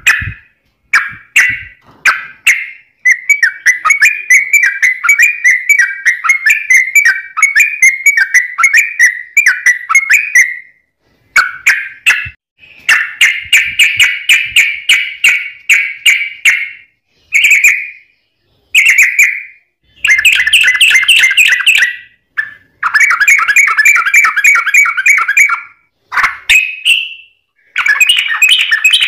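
Yellow-vented bulbul (trucuk) singing fast, dense song. It gives loud runs of quick, repeated chattering notes, some several seconds long, broken by short pauses.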